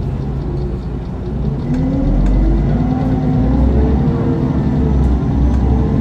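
Mercedes-Benz Citaro O530 Facelift CNG city bus's natural-gas engine and ZF Ecomat automatic gearbox, heard on board while the bus accelerates: the engine note is steady at first, then gets louder and rises in pitch from about two seconds in.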